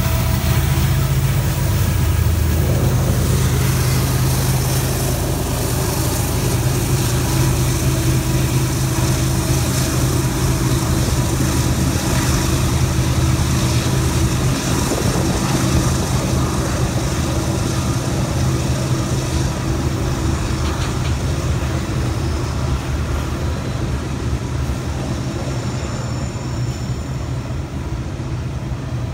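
Norfolk Southern diesel-electric freight locomotives pulling a long autorack train slowly past, their engines giving a loud, steady drone. As the autorack cars roll by on the rails, the engine sound slowly eases off toward the end.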